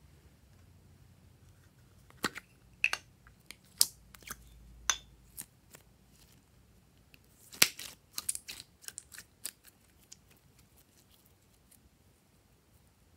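Glossy slime handled and stretched by hand, giving irregular sharp wet clicks and pops, some of them close together in quick runs.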